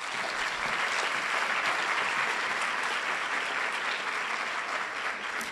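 Audience applauding: many hands clapping steadily, tapering off near the end.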